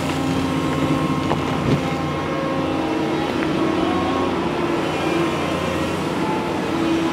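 Doosan DX225LCA crawler excavator's diesel engine running steadily under working load as it scoops and swings its loaded boom. A couple of short sharp knocks come about a second and a half in.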